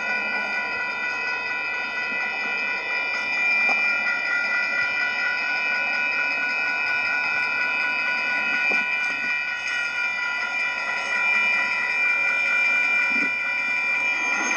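Railroad crossing bell ringing on without pause, with several overtones held steady. The crossing is malfunctioning: its warning keeps sounding with no train present.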